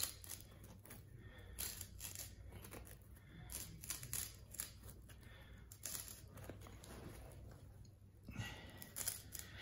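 Utility knife with a fresh blade slicing through worn carpet and its woven backing: faint, scratchy cutting strokes that come irregularly, with a short pause about three-quarters of the way through.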